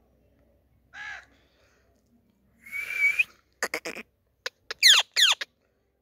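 Rose-ringed parakeet calling: a short call about a second in, a longer call in the middle, then a quick run of short sharp notes and two loud falling screeches near the end.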